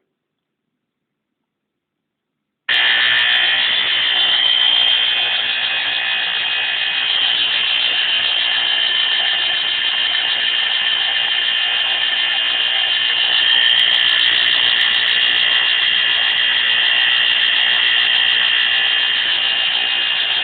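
Pyrotector Smoke Sentinel photoelectric smoke alarm tripping, set off by cigarette smoke. Its Faraday electromechanical sounder starts abruptly about three seconds in and buzzes loudly and continuously, with no pulsing.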